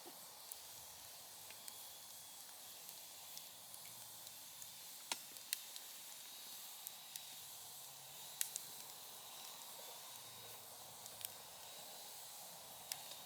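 Firewood burning in a fire pit, crackling: a faint steady hiss with scattered sharp pops, the loudest a little past the middle and near the end.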